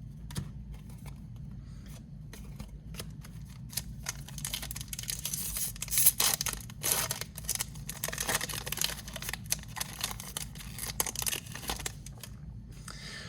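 Handling a stack of Score football trading cards and their plastic pack wrapping: a run of crisp rustles, clicks and crinkles, busiest through the middle of the stretch.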